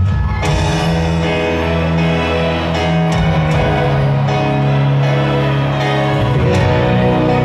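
Live rock music from a stadium PA, recorded from within the crowd: a slow song of long, held chords that change about every three seconds.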